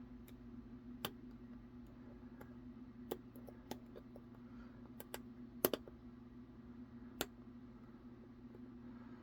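A dimple pick working inside a modified Robur SDB lock: scattered light metal clicks, about eight over several seconds, the loudest a quick double click just past the middle, over a steady low hum.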